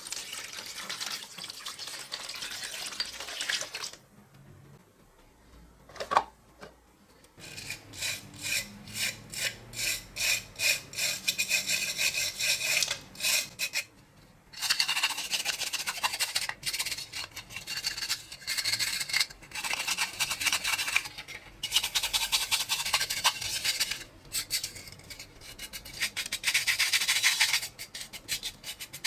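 Rusty metal being scrubbed by hand with an abrasive in quick back-and-forth strokes, about two to three a second, in several bouts with short pauses and a single click between them.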